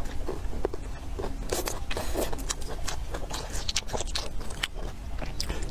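A person chewing food close to the microphone, with many short wet smacks and mouth clicks in irregular succession over a steady low hum.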